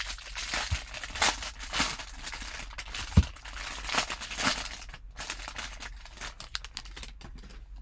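Foil wrapper of a Bowman Draft Super Jumbo baseball card pack crinkling and tearing as it is ripped open by hand and the cards are pulled out, in an irregular run of crackles. A single low thump about three seconds in.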